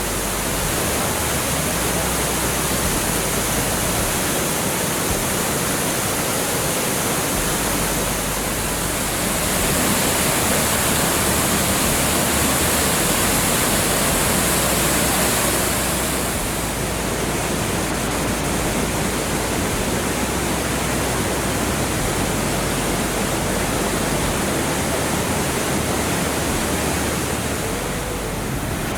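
Waterfall rushing: a steady, loud hiss of falling water, a little brighter for several seconds in the middle.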